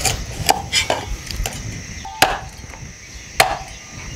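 Cleaver slicing through a raw carp fillet and knocking on a wooden chopping board, about six sharp knocks at uneven spacing as the fish is cut into strips.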